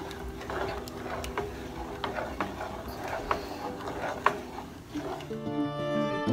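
Wooden spoon stirring a mango gelatin mixture in a metal saucepan, giving irregular light knocks and scrapes against the pan. Background music comes in about five seconds in.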